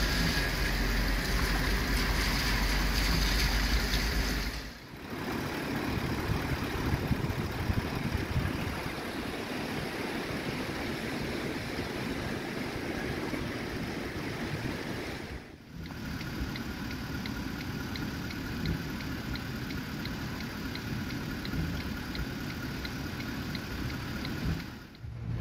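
For the first few seconds, a vehicle engine runs with a low rumble. After a cut, a river in flood rushes steadily.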